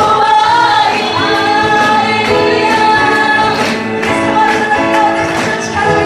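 Live worship music: female vocalists singing a Japanese praise song with instrumental backing, the voices holding long notes.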